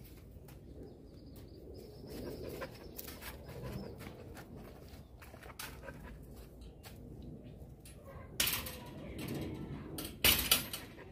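A dog sniffing along the ground with short noisy snuffles and some panting. Two louder bursts come near the end.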